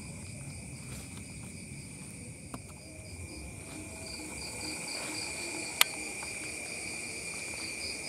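Night insects, crickets among them, chirring steadily in a continuous chorus, one of them in a rapid pulsing trill. One sharp click stands out a little before six seconds in.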